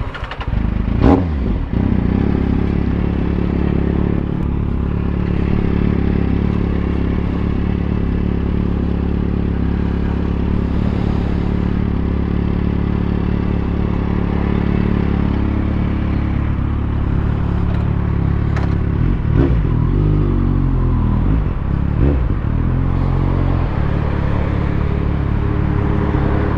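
Motorcycle engine catching and settling into a steady run, then revving up and down a few times about three quarters of the way through as the bike gets under way.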